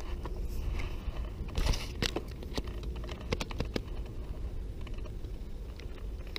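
Scattered clicks and knocks of fishing gear being handled on a plastic fishing kayak, bunched together in the middle, over a steady low rumble of wind on the microphone.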